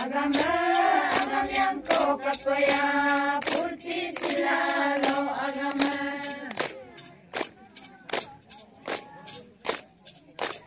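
A group of women singing a chant together in long held notes while clapping a steady beat, about two claps a second. The singing stops about two-thirds of the way through and the clapping goes on alone.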